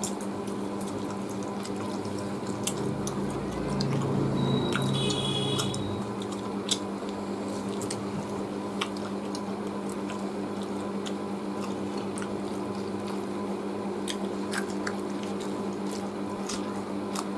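Close-up eating sounds: wet chewing, lip smacks and fingers picking at roast chicken, as scattered small clicks over a steady hum. A louder low rumble rises for a few seconds about three seconds in, with a brief high whistle near its end.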